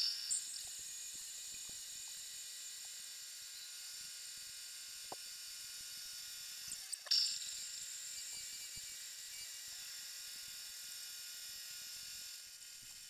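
Homemade lathe running, its carbide insert turning down a metal shaft: a steady high whine with the hiss of the cut, and a short sharp click about seven seconds in.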